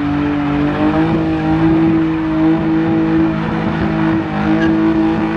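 Car engine held at high revs, its pitch steady apart from a small rise about a second in.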